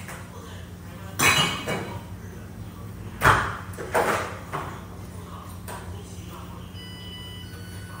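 Kitchen work at the counter: a few sharp knocks and clinks of dishes or utensils, the loudest a little past three seconds in, over a steady low hum.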